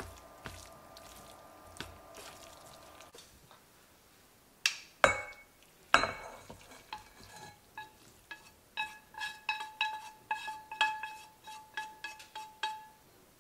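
Cookware being handled: a few light clicks of chopsticks stirring a stir-fry in a nonstick frying pan, then, about halfway, three loud clunks of the pan knocking against a porcelain bowl, followed by a quick run of ringing clinks as the food is scraped out of the pan into the bowl.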